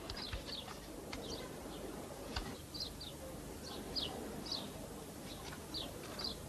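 Small birds chirping: short, high chirps that fall in pitch, repeated about every half second, with one soft click about two and a half seconds in.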